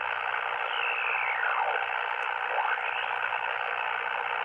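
Ham radio HF transceiver's speaker hissing with static on the 40-meter band: heavy band noise with no station coming through. A whistle falls in pitch about a second in, and a shorter one rises near the middle, as the receiver is tuned across signals.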